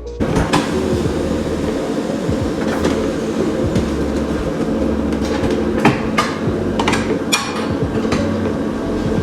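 Tyre-fitting machine running steadily, with scattered sharp metal knocks and clanks.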